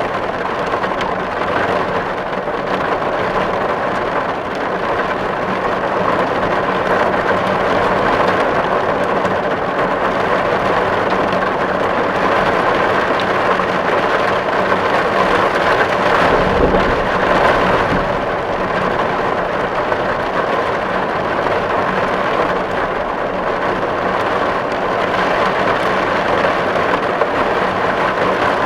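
Steady, dense rain drumming on a tin roof. A brief low rumble comes in about two-thirds of the way through.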